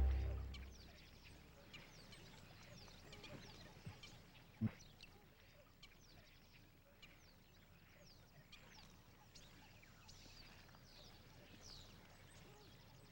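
Faint birdsong: many short, high chirps sweeping down in pitch, scattered throughout over a quiet background hiss, with one brief low thump about four and a half seconds in. Background music fades out at the very start.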